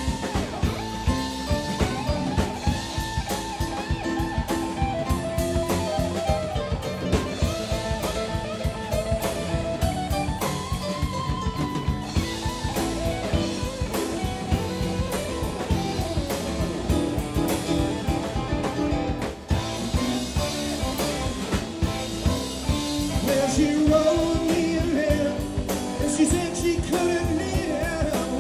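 A live rock band playing: electric guitar lines over a drum kit keeping a steady beat.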